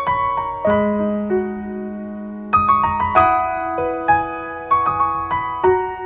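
Background piano music: a slow melody of single notes that ring and fade, with a held low note under the first half.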